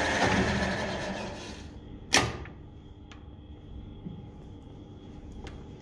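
Metal lathe turning with a knurling wheel pressed into a metal workpiece: a steady grinding noise that dies away over the first two seconds as the lathe stops. A single sharp click follows about two seconds in, then only a faint steady hum.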